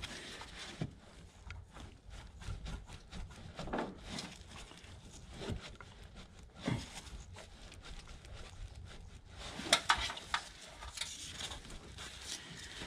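Scattered small clicks, scrapes and rustles of nitrile-gloved hands working a metal AC line into its spring-lock coupling, with a few sharper clicks about ten seconds in as the spring is forced toward locking.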